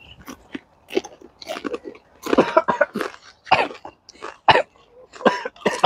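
Several men coughing and clearing their throats in short, irregular fits, with some chewing and crunching of chips between. The coughing is the reaction to the fiery Jolo ghost-pepper chip catching in their throats.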